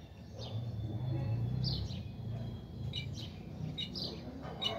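Caged jilguero (brown-backed solitaire) giving a few short, faint high notes, twice in small groups, over a steady low background hum.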